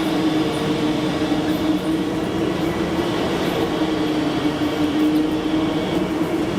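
Heavy metalworking machine tool running with a steady hum over a constant mechanical noise.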